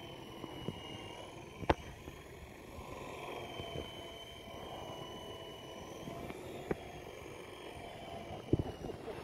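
Small electric RC helicopter's motors and rotors whining faintly and steadily as it comes down low and settles onto grass, with a few sharp clicks, the loudest about two seconds in.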